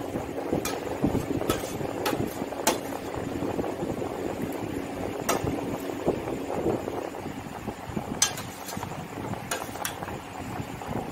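A metal spoon clinking against a stainless steel plate as a child eats, with sharp clinks at irregular intervals, over a steady background noise.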